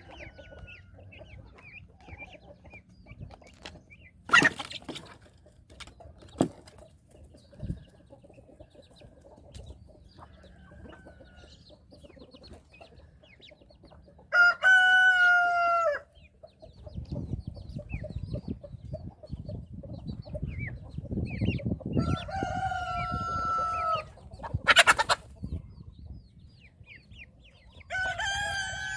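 A rooster crows three times, each crow a long call held for about a second and a half, several seconds apart. Faint high peeping of young birds runs between the crows, with a few sharp knocks and a low rushing noise in the middle stretch.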